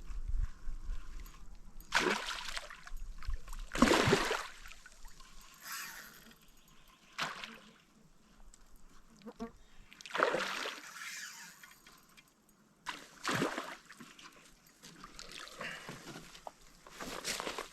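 Water splashing and sloshing in separate surges, roughly every three seconds.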